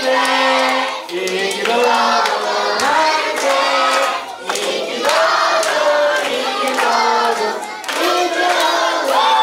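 A group of voices singing together, with hand clapping along.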